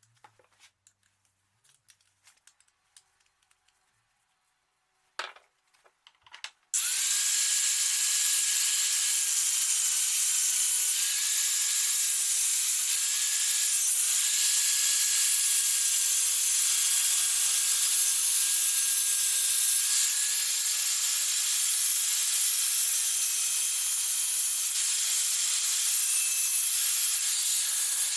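A handheld grinder starts after a few faint handling clicks and runs steadily on steel, with a high hiss and a whine that dips briefly in pitch several times as the disc is pressed into the metal.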